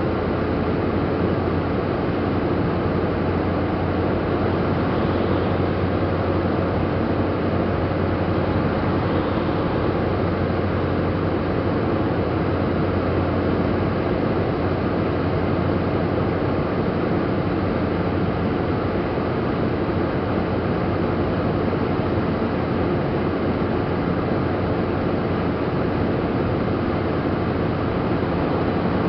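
Steady road noise of a car cruising at speed, heard from inside: tyre roar on the asphalt with a low engine hum, unchanging throughout.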